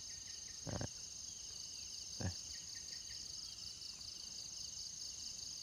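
Steady high-pitched chorus of insects chirring in the undergrowth, with two short, soft handling sounds, one just under a second in and one about two seconds in.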